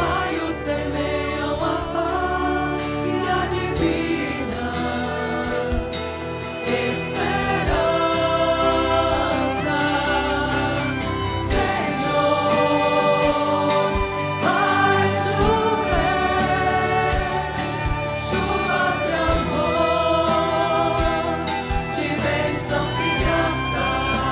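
Devotional hymn sung by women's voices into microphones, joined by a small group, with keyboard accompaniment.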